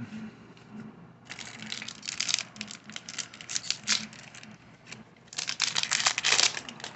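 Foil baseball-card pack wrapper crinkling as it is torn open and handled, in three crackly spells with short pauses between.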